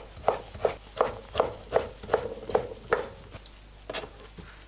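Chef's knife slicing raw chicken breast into thin strips, each stroke knocking on a wooden cutting board, about three knocks a second. The chopping stops after about three seconds, leaving a couple of lighter knocks near the end.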